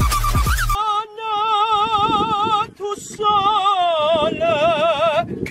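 Electronic dance music with heavy bass cuts off less than a second in, followed by a man singing in a high, operatic voice with a wide, fast vibrato. He sings two long phrases with a brief breath between them.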